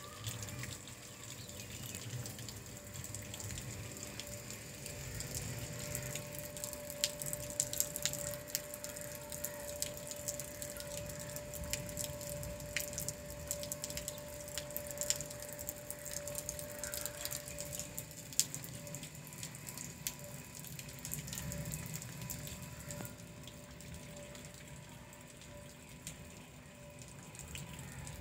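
Water dripping after rain: scattered sharp drips over a low rumble, with a faint steady hum.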